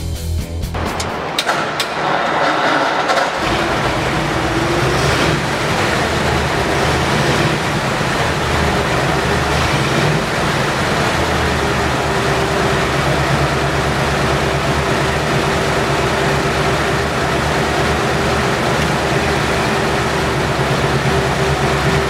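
A 1939 Ford pickup's engine is cranked over and catches a few seconds in, then runs at a steady idle.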